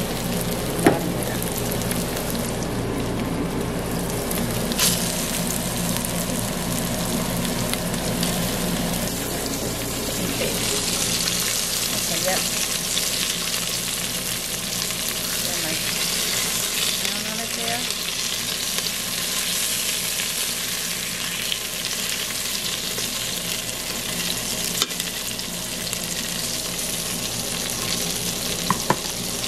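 Floured chuck steak sizzling steadily as it browns in oil in an Instant Pot's stainless steel inner pot on sauté, with a few sharp clicks of metal tongs against the pot, the loudest about a second in.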